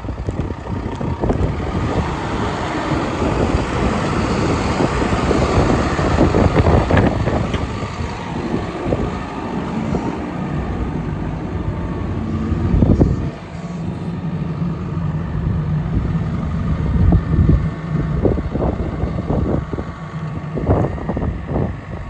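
Caterpillar 420F IT backhoe loader's diesel engine running, with wind buffeting the microphone. A steady engine hum comes through more clearly from about halfway in.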